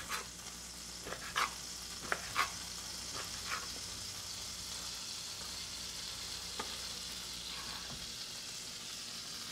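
Diced shrimp and vegetables sizzling steadily in a frying pan, with a few sharp utensil clicks against the pan in the first few seconds and one more later on.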